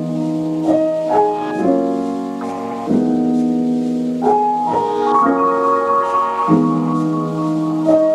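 Background piano music: slow, sustained chords, a new chord struck about every second.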